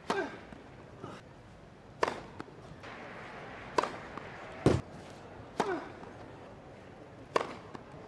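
Tennis serves: a string of sharp, short pops of racket strings striking the ball, about six in eight seconds, over a low steady crowd hum.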